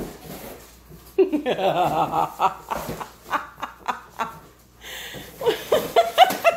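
A woman laughing in wavering bursts, once about a second in and again near the end.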